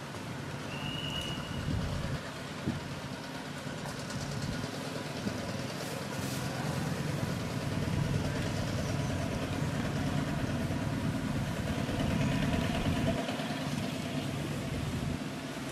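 A motor engine idling steadily, a low rumble that gets a little louder about halfway through.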